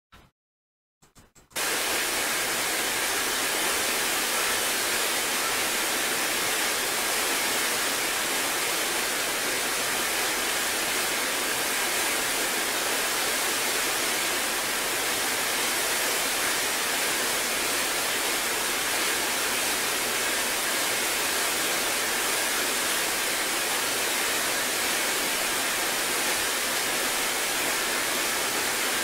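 Steady, even hiss of noise that starts abruptly about a second and a half in and then holds level.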